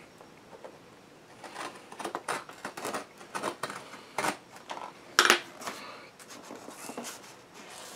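Scratching, scraping and small clicks of a tool cutting along the taped seam of a mailed package, with one sharp, loud click about five seconds in.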